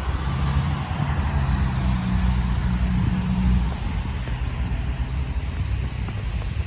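A motor vehicle's engine running close by with a low, steady hum, strongest for the first three and a half seconds and then fading.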